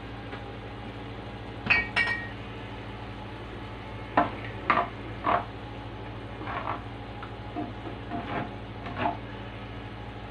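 Plastic slotted spatula stirring and scraping tomato sauce in a nonstick frying pan, knocking against the pan about seven times. Two sharper ringing taps come about two seconds in, over a steady low hum.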